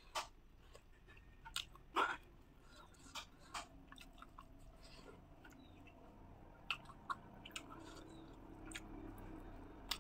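A person chewing and eating, quiet mouth sounds with a scatter of short sharp clicks at irregular intervals, the loudest about two seconds in.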